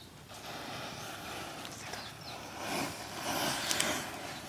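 Burning matchsticks and matchboxes: a steady hiss of flame that swells about three seconds in, with a few sharp crackles.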